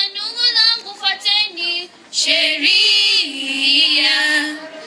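A girl singing solo into a microphone: a few short sung phrases, then from about two seconds in long held notes.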